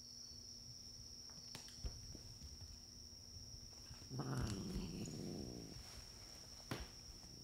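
A cat growls low and rough for under two seconds, starting about four seconds in. Crickets trill steadily and high-pitched in the background.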